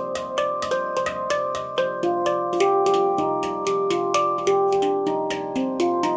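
Instrumental music: a melody of pitched notes over a steady, fast ticking beat.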